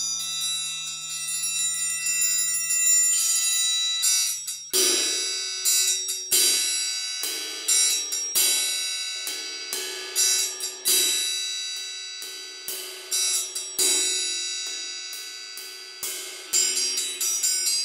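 Four triangles of different sizes ringing in interlocking patterns of light strikes. About five seconds in, a large cymbal on a stand joins, struck roughly every second or so, each stroke washing out over the triangles.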